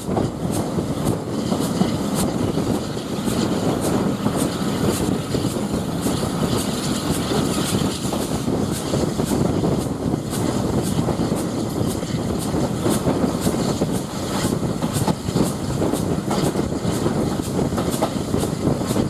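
Heritage railway coach running along the line, heard out of an open carriage window: a steady rumble from the coach with many sharp wheel clicks over the rail joints, several a second.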